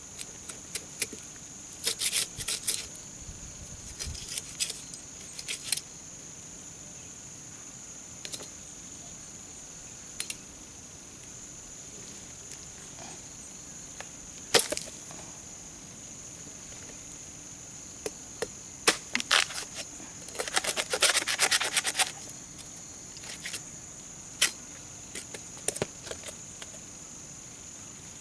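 Curved billhook knife chopping and scraping roots and soil off a freshly dug elephant foot yam corm: irregular sharp chops, with quick flurries of strokes a couple of seconds in and again about twenty seconds in. Crickets chirr steadily behind.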